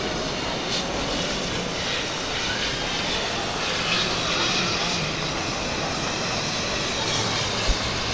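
Steady rushing noise of fast river water running through a narrow rock gorge, with one short low thump near the end.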